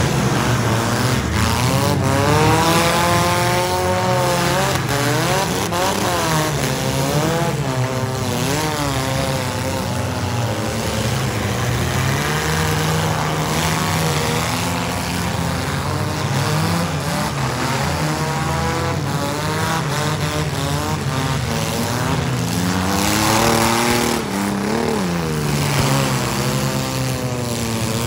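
Engines of several wrecked compact demolition-derby cars revving up and down hard, their pitches overlapping and rising and falling again and again.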